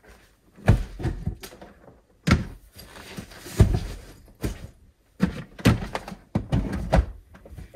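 Gear being loaded into a car's cargo area: a hard carry case and other items set down and shifted, giving a string of irregular thuds and knocks with rustling between them.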